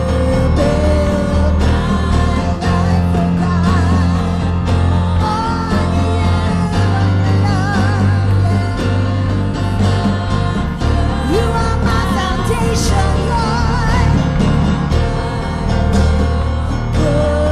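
Live worship band playing a slow praise song: women's voices singing with vibrato over keyboard and band accompaniment, with sustained low bass notes.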